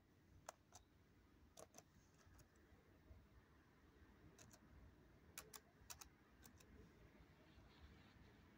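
Near silence broken by about ten faint, scattered clicks of a computer keyboard.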